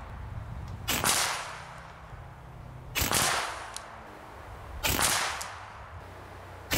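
Three shots from an AEA Challenger Elite .50-calibre big-bore PCP air rifle, about two seconds apart. Each is a sharp crack that trails off over about half a second, and a fourth shot comes right at the end.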